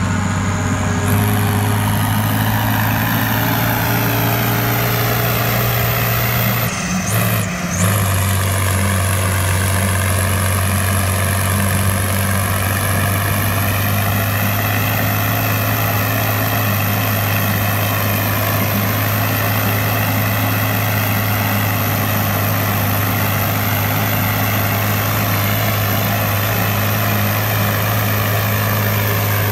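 Claas self-propelled forage harvester chopping grass silage, with a tractor and trailer running alongside: a loud, steady heavy-engine drone with a higher whine that drifts slowly up and down in pitch. The sound dips briefly about seven seconds in.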